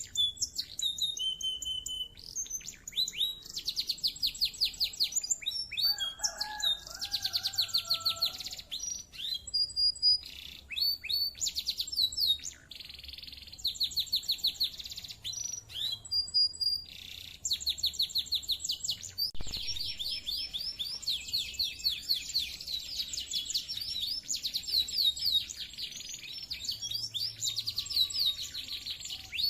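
Domestic canary singing: long rolls and trills of rapidly repeated high notes, broken by short pauses between phrases.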